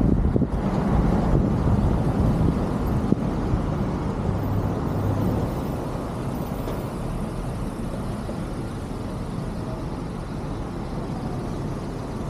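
Tyre and wind noise of a car driving along a city street. It eases off over the first half as the car slows and stops in a queue of traffic, leaving a lower steady rumble.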